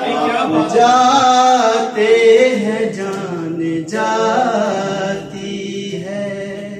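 A man sings an Urdu ghazal unaccompanied into a microphone, holding long, drawn-out notes. The voice fades away near the end.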